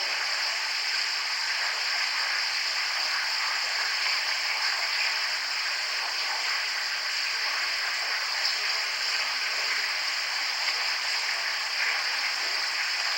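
Steady high-pitched hiss with no speech, with a few faint, brief sounds in it.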